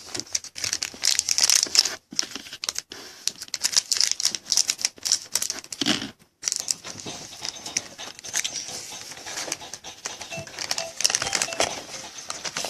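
Wrapper of a 2014 Panini Prizm jumbo football card pack being torn open and crinkled by hand, a dense irregular crackling with a couple of brief pauses.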